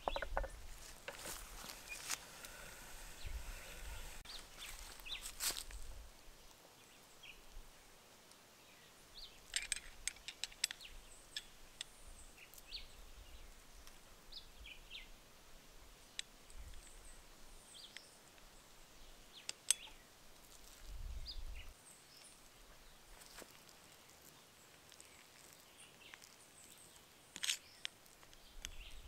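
Quiet outdoor background with birds chirping now and then, over scattered light clicks and scrapes of a silicone spatula and metal ring mould as ground cacao is packed; the handling noise is busiest in the first few seconds.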